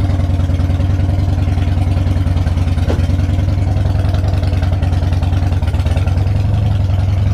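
2004 Harley-Davidson Dyna Wide Glide's Twin Cam 88 V-twin engine idling steadily with a fast, even lumpy pulse.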